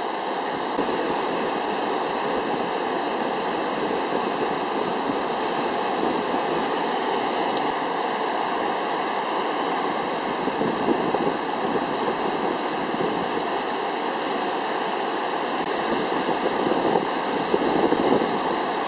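Heavy ocean surf breaking and washing over a rock reef: a steady rush of whitewater that swells a little louder near the end.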